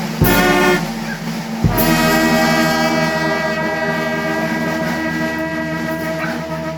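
Mexican brass band (banda) playing: a short accented chord with a drum and cymbal hit, then about a second and a half in another hit and a long held chord that carries on almost to the end.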